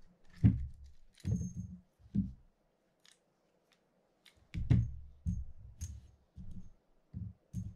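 A series of short knocks and light clicks from handling the small metal parts of a Penn Senator 3/0 reel: the mini screwdriver working the last side-plate screws, the right side plate lifted off, and the plate and loose screws set down on a paper towel. The loudest knocks come about half a second in and again a little past halfway.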